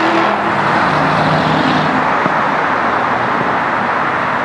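Road traffic on a multi-lane city street: cars passing with a steady rush of tyre and engine noise.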